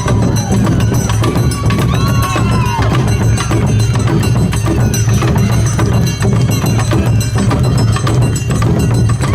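Awa Odori festival music played live: taiko drums beating a dense, driving rhythm with the clanging kane hand gong on top. A pitched line, a voice or flute, rises and falls about two seconds in and again near the end.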